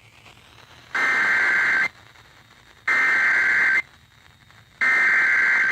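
Emergency Alert System SAME header received over the radio: three bursts of two-tone digital data, each just under a second long and about a second apart, with radio hiss in the gaps.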